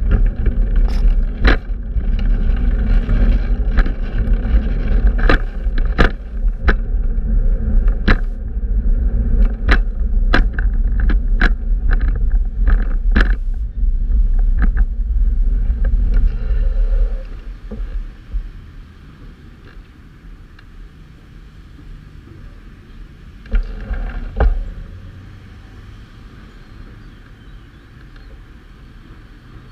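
Street noise heard from a moving fixed-gear bicycle: a heavy low rumble of wind and road with many sharp clicks and knocks. After about seventeen seconds it drops to a quieter steady city background, with one brief louder rush a few seconds later.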